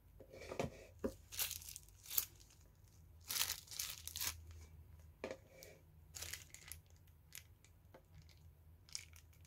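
Plastic piping bag crinkling and rustling as it is squeezed to pipe whipped cream, in short, irregular bursts.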